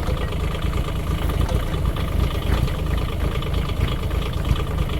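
Mini excavator's diesel engine running steadily.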